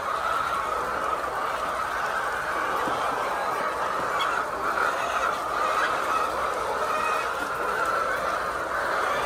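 A flock of chickens clucking and calling together in a steady, dense chorus.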